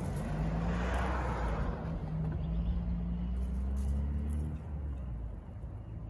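A motor vehicle's engine running nearby as a steady low hum, edging slightly up in pitch, then fading away after about four and a half seconds.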